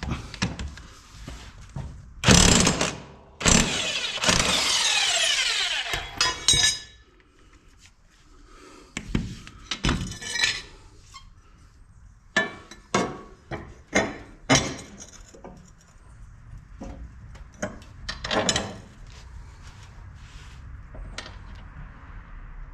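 Impact wrench running on a mower deck's 15/16-inch blade bolt in two bursts, the second about two and a half seconds long. It is followed by a series of sharp metal clanks and knocks as the blades and bolts are handled.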